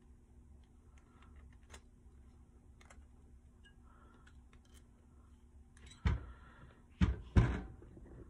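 Light scattered clicks as a Wiseco piston is handled. Near the end come three loud metallic clunks, the piston and its connecting rod being knocked and set down on the bench.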